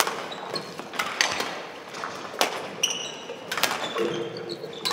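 Badminton rally: rackets striking the shuttlecock about five times, roughly one hit every second and a bit, with shoes squeaking on the court floor between hits.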